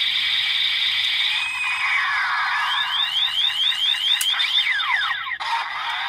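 Electronic transformation sound effects from a DX Desire Driver toy belt with the Typhoon Raise Buckle, played through its small, tinny speaker: a held high tone, then falling glides and a quick run of rising chirps, breaking off briefly near the end and starting again.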